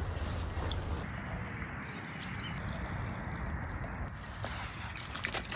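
Steady rushing outdoor background noise with a few short, high bird chirps about two seconds in.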